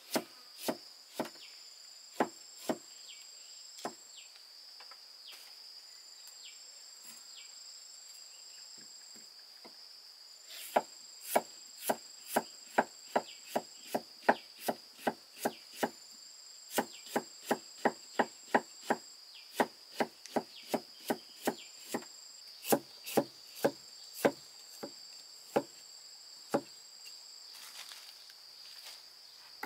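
Chopping strokes on wood: a few at first, a pause, then a steady run of about two sharp strokes a second through the middle, thinning near the end. A steady high drone of insects runs underneath.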